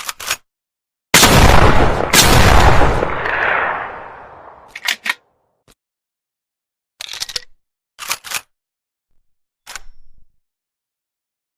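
TOZ over-under shotgun fired twice, about a second apart, each shot loud with a long fading tail. Short sharp clicks follow in pairs over the next several seconds.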